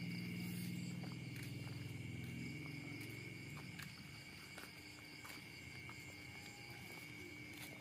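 Crickets chirping steadily at night, with a low droning sound that fades away over the first three seconds or so and a few faint clicks.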